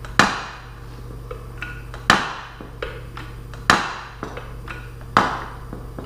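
Loud metallic bangs with a ringing tail, four of them about every one and a half seconds with lighter clicks between: a seized milling-machine quill jerking loose in its cast-iron bore as a hydraulic porta-power ram forces it out.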